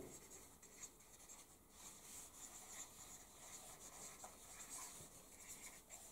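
Faint scratching of a pen writing by hand on paper, in short irregular strokes.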